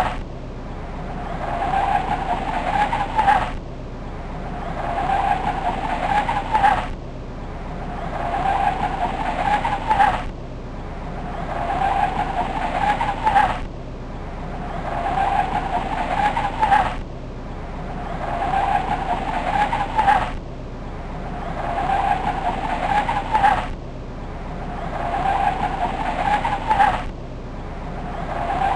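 Volkswagen Golf Mk4 GTI exhaust, a short clip of the car's sound repeated over and over: each time it swells gradually for about three seconds and then cuts off suddenly, about every three and a half seconds.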